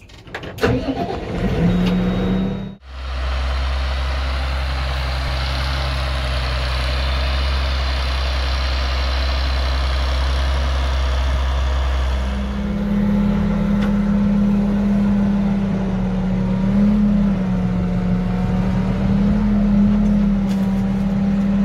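SAME Laser 150 tractor's diesel engine running steadily. About three seconds in the sound changes to a deeper rumble with a hiss. From about twelve seconds in it becomes a steady engine drone heard from inside the cab, its pitch wavering slightly.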